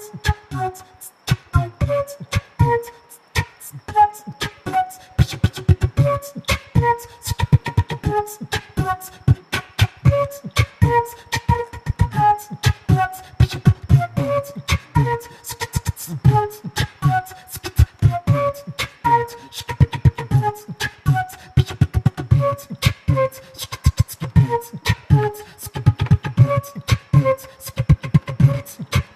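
Background music: a melody of short pitched notes over a steady percussive beat.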